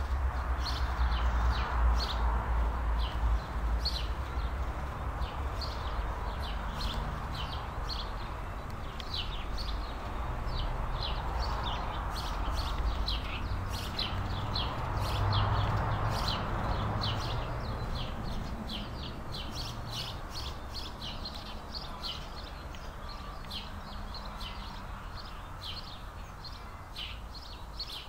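Many small birds chirping in quick, repeated short calls, over a steady low rumble that is heaviest in the first few seconds.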